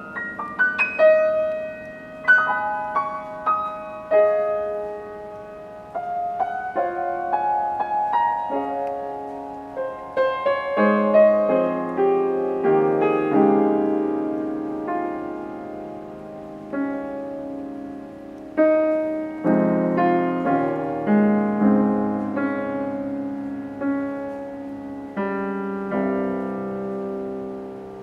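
Yamaha grand piano played solo as an improvisation: notes and chords struck and left to ring away. Light, higher notes at first, then fuller, louder chords lower down from about ten seconds in.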